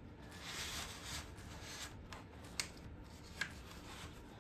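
Hands pressing and rubbing a large stiff scenery panel into place on a model railway layout: faint soft rubbing and scraping, with two light clicks about two and a half and three and a half seconds in.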